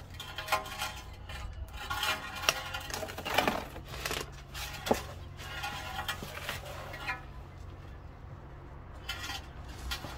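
Metal tools and parts being handled during car suspension work: scattered light clinks and knocks, a few sharper ones, over a faint steady low hum.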